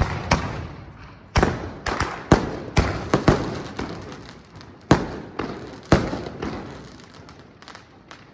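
Aerial fireworks bursting: a run of about a dozen sharp bangs at uneven intervals over a hissing background, dying away over the last couple of seconds.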